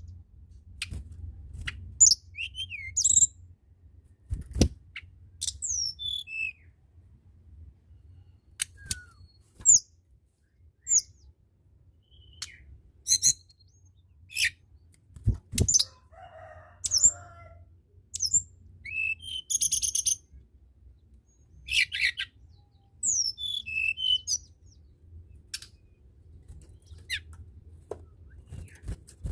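Tledekan gunung singing: bursts of short high chirps and quick downward-slurred whistles every second or two, over a faint low hum. A dull low thump comes about four seconds in and another about fifteen seconds in.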